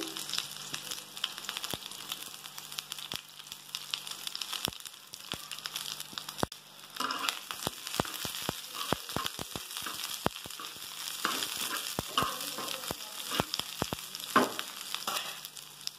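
Sliced onions sizzling in a little hot oil on a tawa, stirred with a metal spoon that clicks and scrapes against the pan. The clicks come more often in the second half.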